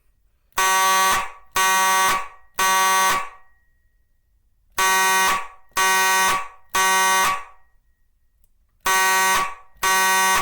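Simplex 4903 fire alarm horn sounding a temporal-3 (code 3) evacuation pattern: groups of three short blasts about a second apart, with a pause of about a second and a half between groups.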